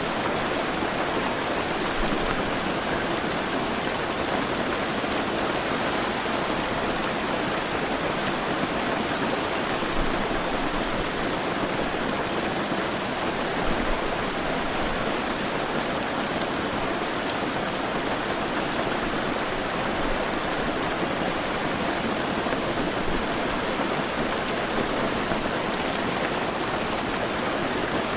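Heavy rain falling steadily, a continuous even hiss of rain on surfaces.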